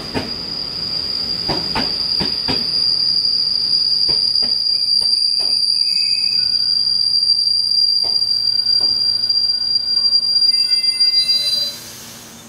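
Taiwan Railway EMU900 electric multiple unit braking to a stop at a platform: one steady high-pitched squeal from its brakes and wheels, with a few clicks of wheels over rail joints in the first seconds. The squeal cuts off about a second before the end as the train halts.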